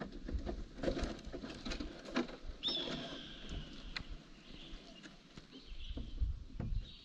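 A bird of prey's high, thin whistled call, taken for an eagle: one drawn-out note that falls slightly, starting about three seconds in, with fainter calls near the end. Under it, water drips and light knocks from canoe paddling.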